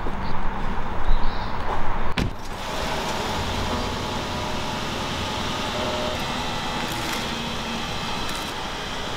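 A car door of a Mercedes-Maybach sedan shuts with a single knock about two seconds in, then the car runs with a steady low noise as it pulls away.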